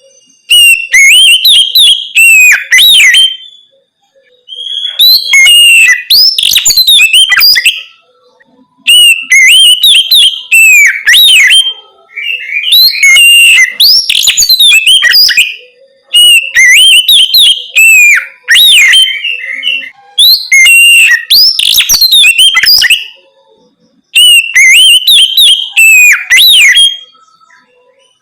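Oriental magpie-robin (kacer) singing loud, clear 'ngeplong' song: seven phrases of fast whistled, sliding notes, each about three seconds long, with short pauses between them.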